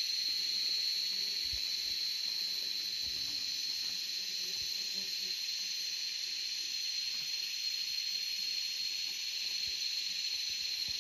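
Steady high-pitched insect drone, an even buzzing hiss that holds one pitch without a break.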